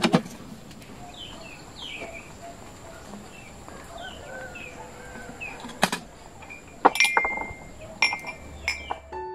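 Cups and a metal kettle set down on a wooden table, several sharp clinks and knocks, most of them in the last few seconds. Birds chirp in the background.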